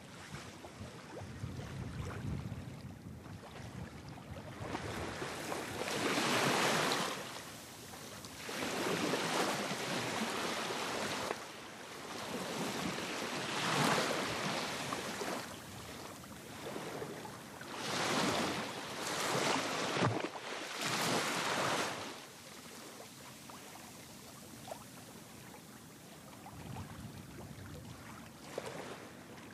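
Waves washing and splashing against the waterfront in about six rushing surges, each a second or two long, then settling to a low wash.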